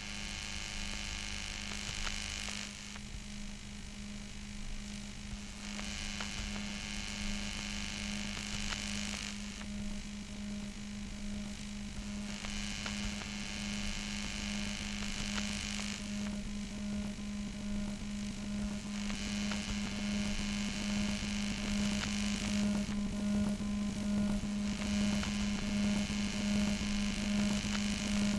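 Lowercase ambient musique concrète piece built on a steady low hum. A hissing high wash swells in for about three seconds, roughly every six seconds, and a faint higher tone joins about ten seconds in. The whole grows slowly louder.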